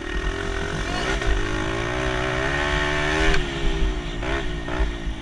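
Motorbike engine accelerating: it revs up about a second in, holds a steady pitch, eases off a little after three seconds, then gives a couple of short throttle blips.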